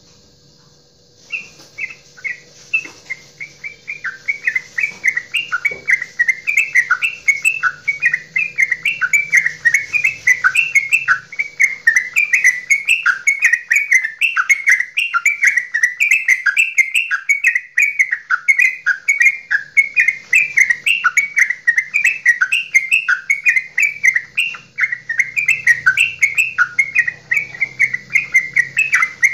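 Yellow-vented bulbul (trucukan) singing its 'goklikan' chatter: a long, unbroken run of rapid short chirps, several a second, starting about a second in.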